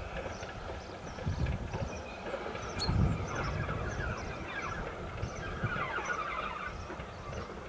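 A steam locomotive running along the line in the distance, a low rumble, with birds singing.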